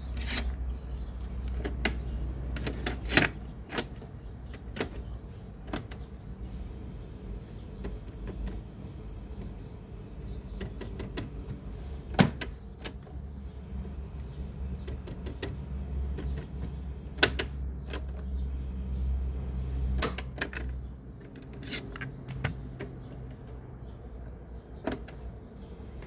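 Scattered sharp clicks and knocks over a steady low hum, typical of a Sony CFS-710S cassette boombox being handled and its controls worked during repair.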